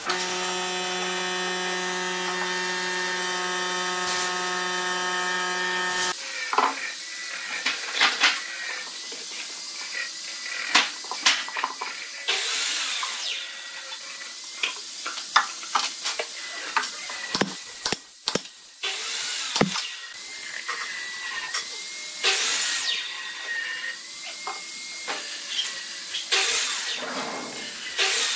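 A machine hums steadily for about six seconds, then cuts off. Then come scattered metal clicks and wooden knocks of clamps being set on a glued-up pine panel, with a few short hissing rushes.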